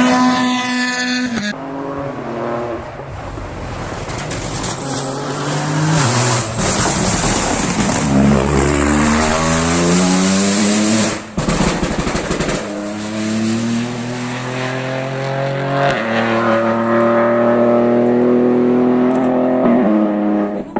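Rally cars driven hard on a stage, engines revving up and dropping in pitch again and again through gear changes. The sound breaks off abruptly a few times as one car's pass gives way to another's.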